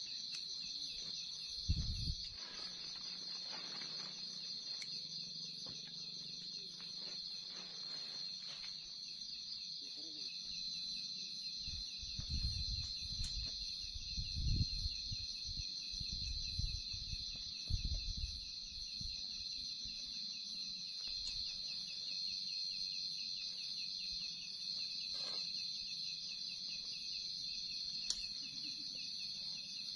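Steady chorus of night insects, crickets trilling without a break. Around the middle come rustles and a few soft thumps from tent fabric and poles being handled.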